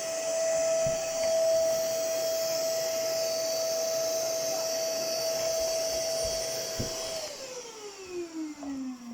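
Household vacuum cleaner running with a steady whine and rushing air, then switched off about seven seconds in, its motor whine falling in pitch as it spins down. A few light knocks sound while it runs.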